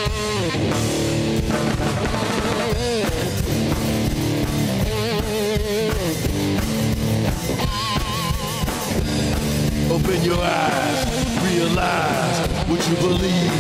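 Rock band music: electric guitar over a drum kit, with held lead notes shaken in a wide vibrato around the middle of the passage.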